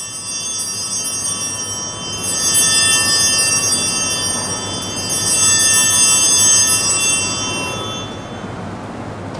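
Altar bells rung three times for the elevation of the chalice at the consecration, a cluster of bright overlapping chimes that dies away near the end.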